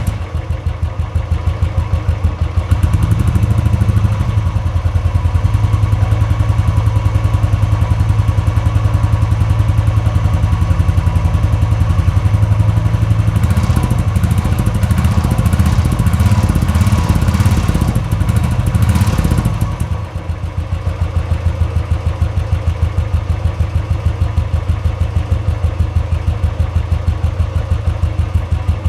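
Royal Enfield Classic 350 BS4's single-cylinder engine running on its stock exhaust, with its thump of evenly spaced firing pulses. It runs faster and louder from a couple of seconds in until about twenty seconds in, then drops back to a steady idle.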